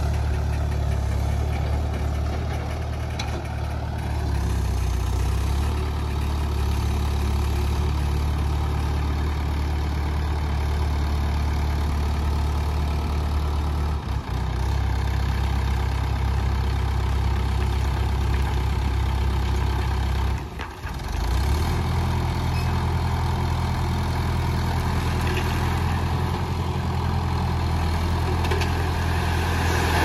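Mahindra 575 tractor's diesel engine running steadily while it drives the hydraulics that raise a loaded tipper trailer bed. The engine note shifts about four seconds in and dips briefly twice, and near the end a rushing hiss rises as soil slides off the tipped bed.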